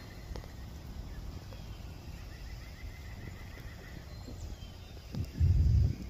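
Wind buffeting the microphone outdoors: a steady low rumble, with a much louder gust in the last second.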